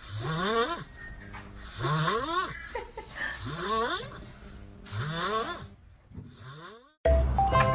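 Kitten growling while it eats dry kibble: a run of short, rough calls, each rising in pitch, about one a second. Music cuts in suddenly near the end.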